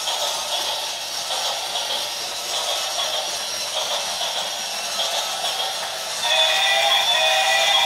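Battery-powered toy train running around its plastic track with a steady mechanical whir. About six seconds in, a louder electronic tune of stepping notes starts.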